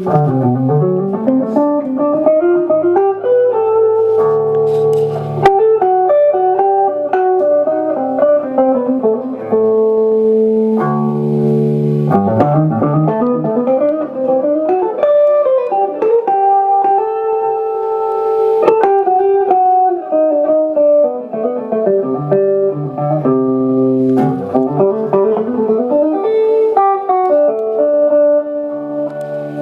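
Instrumental band music led by a guitar playing a melodic line with held and sliding notes over low bass notes, with an occasional cymbal stroke.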